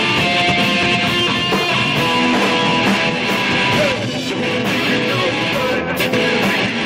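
Rock band playing live, electric guitar to the fore, loud and dense, with a couple of sharp crashes near the end.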